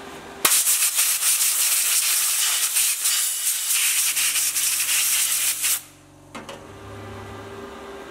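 Sanding on the steel corner of a door frame over fresh weld spots, smoothing them and taking off surface rust: a loud, even rasp that starts about half a second in and stops abruptly near six seconds.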